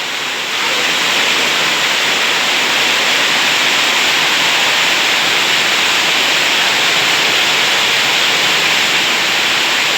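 Heavy rain falling steadily, a dense, even hiss that grows a little louder about half a second in.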